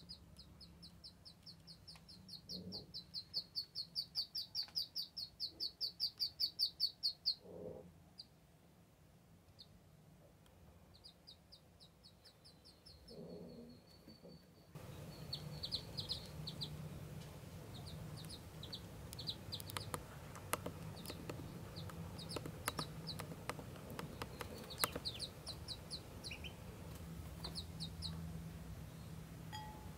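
Ducklings peeping: a fast run of high peeps, about eight a second, in the first quarter, then scattered short peeps. After about fifteen seconds there is a steady low hum and faint clicks.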